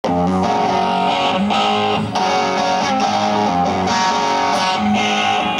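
Live rock music: an electric guitar strumming chords, which change every second or so, over the band. It is heard through a camcorder microphone out in the audience.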